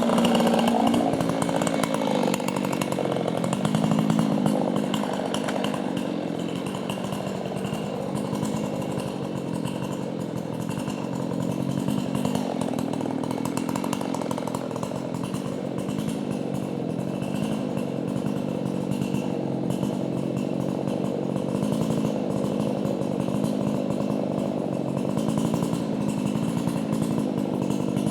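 Chainsaw running steadily under load, sawing into a tree during felling; its pitch shifts a little about a second in, then holds.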